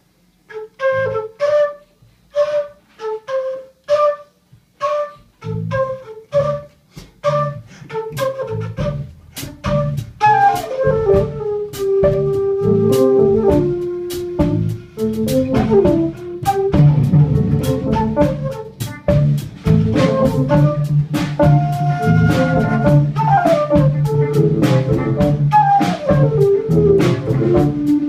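Live band music: the song opens with spaced, repeated short notes, a bass line joins about five seconds in, and from about ten seconds the full band with drums comes in under a flute melody.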